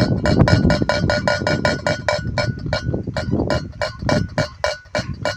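Wind-driven kitiran bird-scarer clinking rapidly as its propeller spins, about five or six ringing strikes a second, with wind rumble underneath.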